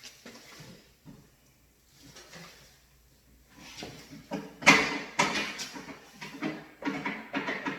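Packaging and a large boxed photo booth being handled: a few faint rustles, then from about halfway in a loud run of scraping, crackling and knocking.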